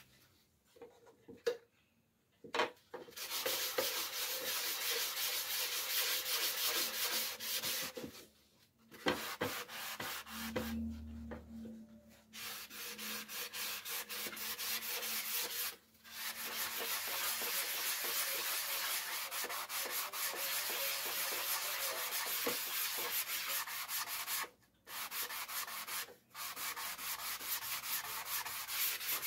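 Hand-sanding bare wood: a sanding block rubbed back and forth in quick strokes along a paint-stripped wooden cabinet frame. It starts about three seconds in and stops briefly a few times.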